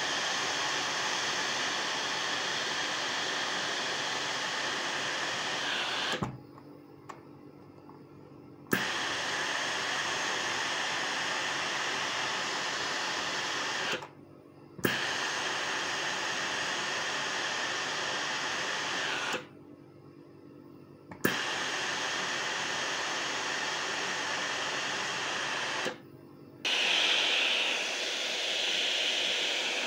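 Vestel steam-generator iron blowing steam in five long hisses of about four to six seconds each, each one starting with a click and broken by short pauses. The steam output that had stopped is working again.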